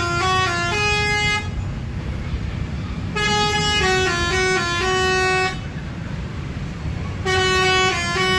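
A bus's Basuri multi-tone musical horn (telolet horn) playing short stepping tunes: one phrase ends about a second and a half in, a second plays in the middle, and a third starts near the end, with a low engine rumble underneath.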